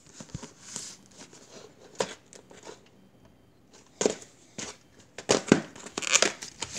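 Hands handling a plastic VHS clamshell case: a few sharp clicks and knocks, then plastic crinkling and rustling over the last couple of seconds.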